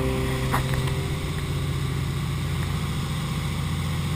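A boat's engine running steadily under way: a low drone with a steady rush of noise over it. A brief click about half a second in.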